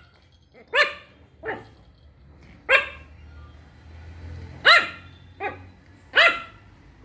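Shih Tzu puppy barking: six short, high-pitched yaps at uneven gaps of about one to two seconds, the second and fifth softer.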